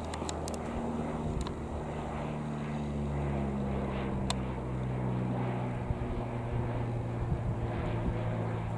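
Piper PA-28-180 Cherokee Archer's four-cylinder Lycoming piston engine and propeller running in flight overhead, a steady drone whose pitch edges up a little as it goes.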